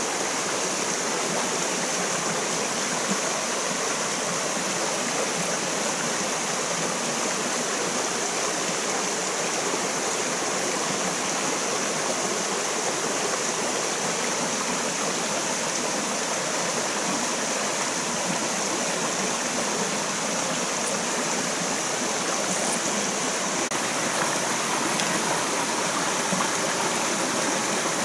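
Shallow rocky stream flowing steadily over stones, an even, unbroken rush of water.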